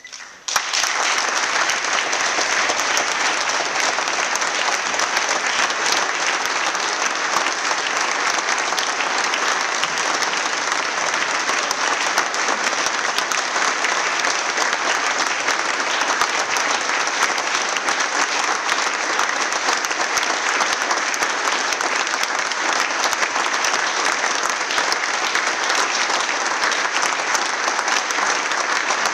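Applause from a roomful of people clapping, starting abruptly about half a second in and going on at a steady level without letup.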